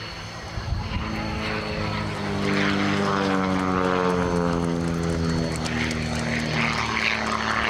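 Propeller-driven aerobatic biplane flying past with its engine and propeller droning. It grows louder about two and a half seconds in, then its pitch slides steadily down as it passes.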